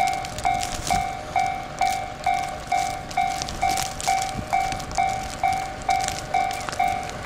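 Japanese railway level-crossing warning bell ringing steadily, about two dings a second. Right at the end, the rumble of the approaching train begins.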